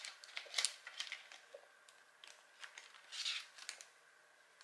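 Paper tracker card and clear plastic binder pocket being handled: faint rustles and light clicks as the card slides into the sleeve, with a longer rustle a little past three seconds in.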